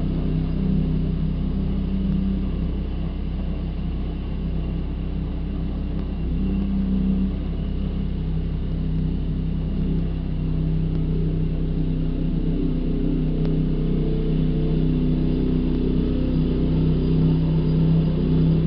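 Car engine and road noise, a steady low drone.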